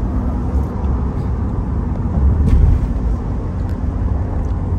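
Road and engine noise inside a pickup truck's cabin at highway speed: a steady low rumble that swells louder for a moment a little past two seconds in.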